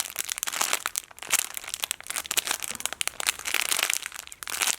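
Plastic squishy packaging crinkling steadily as it is handled, in a quick irregular crackle.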